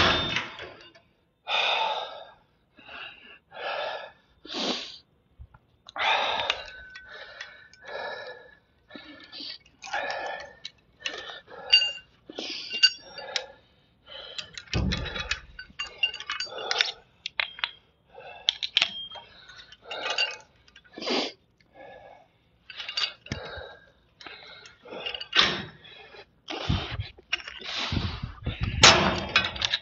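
A man's heavy, forceful breathing during a cable-machine set: a long run of short puffs and gasps, with a few light metallic clinks from the cable hardware and a dull thud about halfway through.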